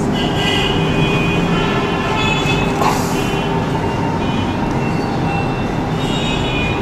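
Steady, fairly loud background noise with faint high tones coming and going over it.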